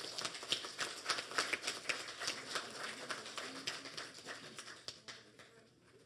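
Audience applauding with many separate hand claps, thinning out and dying away about five seconds in.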